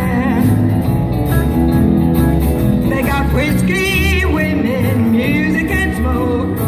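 Live country band playing a honky-tonk number over a steady beat: electric bass, electric and acoustic guitars and a steel guitar, amplified through stage speakers.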